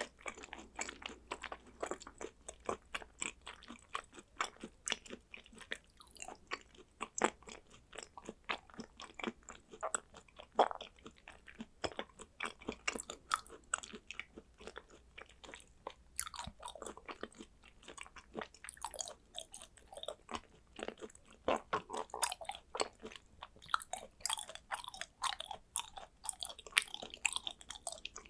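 A person chewing thin slices of raw hanwoo beef, a quick, continuous run of small wet mouth clicks and smacks, several a second.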